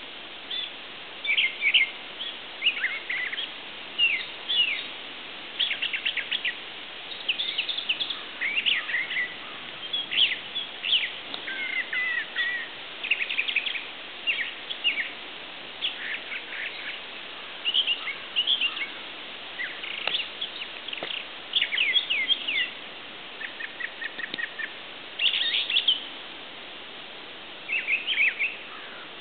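Songbirds singing and calling: many short high chirps and whistles, some sliding down in pitch, overlapping all the way through over a steady background hiss.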